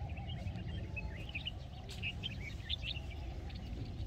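Many small birds chirping in quick, short notes, over a low steady rumble.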